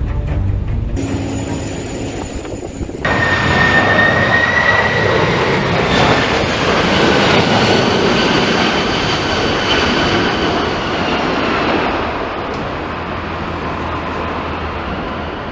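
McDonnell Douglas MD-11F jet engines running: a loud rush with a high, steady fan whine that comes in suddenly about three seconds in and eases off slightly after twelve seconds.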